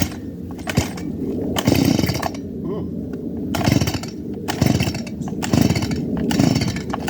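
Stihl Mini Boss two-stroke chainsaw being pull-started on choke: repeated starter-cord pulls, roughly one a second, with the engine turning over but not staying running.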